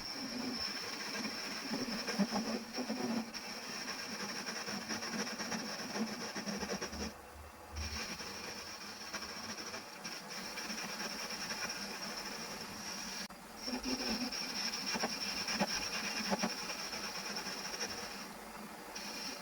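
A homemade machine driven by an old washing machine motor, running steadily with a constant high whine over a hissing rattle. It drops out briefly about seven, thirteen and eighteen seconds in.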